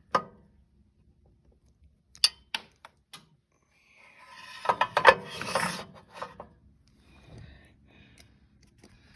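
A sharp click, a few separate clicks, then a burst of metal clattering and rattling about five seconds in: hand tools and small metal hardware being handled during work on the sawmill.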